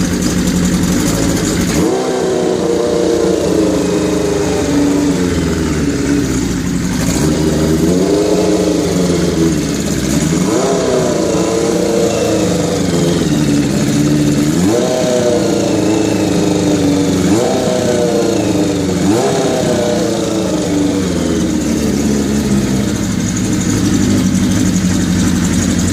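1981 Kawasaki GPz550 inline-four running through a Yoshimura exhaust at a raised idle, on its first run after a full restoration and decades off the road. The throttle is blipped about six times, each rev rising and dropping back to idle.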